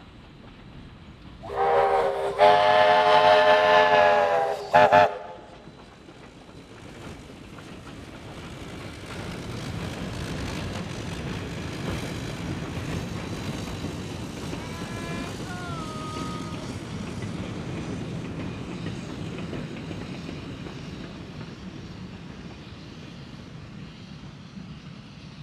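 Steam whistle of Victorian Railways K class 2-8-0 locomotive K153, sounded for a level crossing: one long blast and then a short toot. Then the locomotive and its carriages run past, the noise swelling and fading away.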